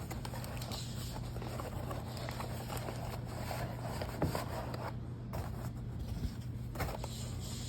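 Paper and packing material being handled: rustling with light scrapes and small knocks, over a steady low hum.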